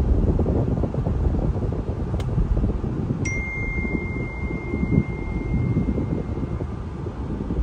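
Road and wind noise inside a 2020 Chevrolet Malibu's cabin at highway speed. A click comes about two seconds in. A little after three seconds in, a single high warning chime starts and rings on for about three seconds, fading, as the dashboard posts a 'Service Driver Assist System' alert: the driver-assist system is still faulted.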